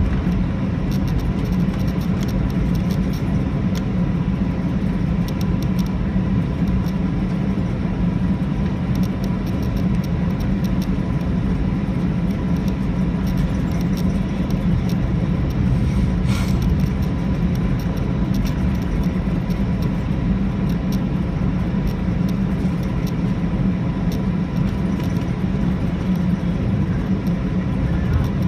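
Steady cabin noise of an Airbus A319 taxiing: a low, even rumble from the jet engines at taxi power and the cabin air, with a thin steady tone over it and one faint click about halfway through.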